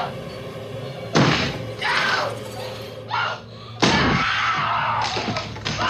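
Heavy axe blows splintering a wooden door, twice, about a second in and near four seconds, each followed by a woman screaming in terror.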